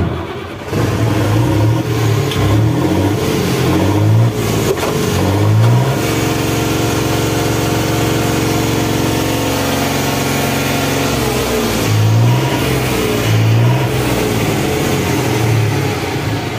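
Ashok Leyland BS4 truck's diesel engine starting, then revved: several rising and falling revs, a steady hold at high revs in the middle, then a few more blips near the end. The crank (flywheel) sensor has just been cleaned of rust so that it sends a correct signal to the ECM.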